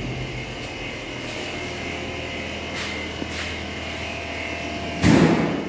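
Steady mechanical hum of gas-chromatography lab equipment, with the nitrogen generator running through its purge. About five seconds in comes a short, loud rush of noise.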